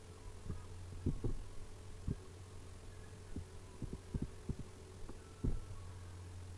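A steady low hum with about a dozen soft, low thuds at irregular intervals, clustered in the first two seconds and again around the middle, the strongest about five and a half seconds in.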